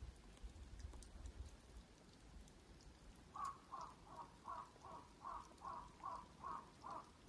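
A crow cawing: a quick run of about ten caws, roughly three a second, starting about halfway through. A faint low rumble sits under the first couple of seconds.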